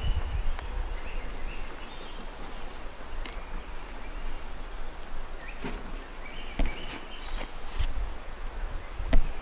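Woodland ambience: faint, short high chirping calls scattered through, over a steady low rumble, with a few soft clicks and knocks.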